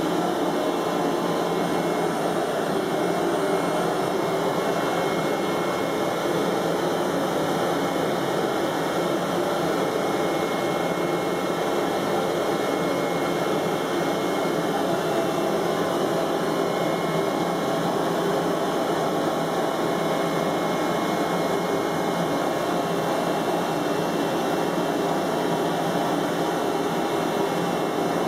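Steady rushing noise of a CNC digital cutting table in operation, its vacuum system holding the carbon fibre prepreg flat while the cutting head works across the sheet.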